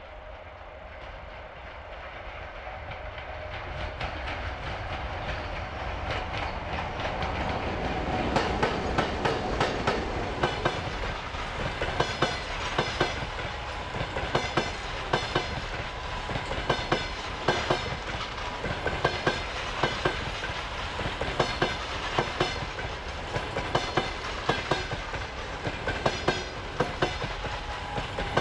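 Passenger train behind an EP1M electric locomotive approaching and passing close by: the sound grows louder for about eight seconds as the locomotive comes past, then the coach wheels clickety-clack over the rail joints in a regular rhythm of sharp clacks over a steady rumble.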